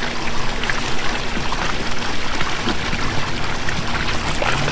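Intex LED waterfall pouring a steady stream of water into an above-ground pool, an even splashing.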